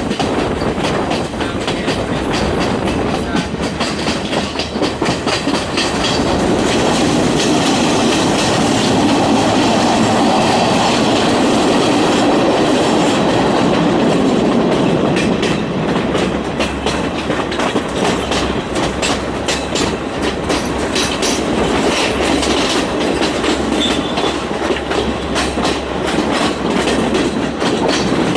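Passenger train running along the rails, its wheels clattering steadily over the track with a dense run of clicks and clacks.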